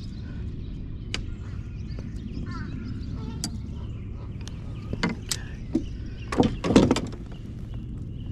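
Scattered sharp clicks and knocks of handling, with a louder cluster of knocks about six and a half seconds in, over a steady low rumble.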